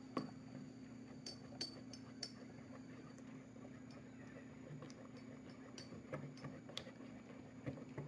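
A plastic stick stirring a thick, wet slime mixture in a plastic bowl, with scattered light clicks and taps of the stick against the bowl over a faint steady hum.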